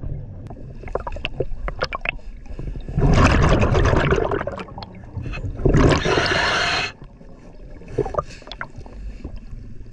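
A scuba diver breathing through a regulator underwater: two loud breaths with bubbling, about three and about six seconds in, and light clicks and taps before them.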